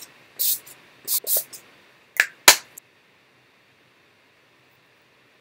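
Short swishes of a kabuki brush sweeping powder across skin, three quick strokes. They are followed by two sharp clicks a little after two seconds in, then near silence.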